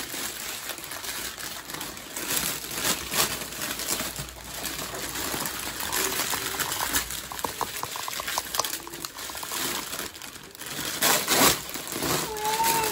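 Clear cellophane wrap around an Easter basket crinkling and crackling in irregular bursts as it is handled and pulled open.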